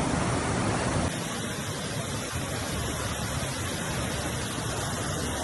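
Steady rushing noise of water, with no distinct events; about a second in it shifts to a slightly quieter, different texture.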